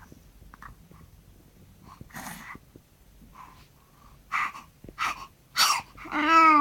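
A run of sneezes: one about two seconds in, then three quick ones in the last two seconds, each louder than the one before. Near the end a voice breaks in with a drawn-out wavering sound.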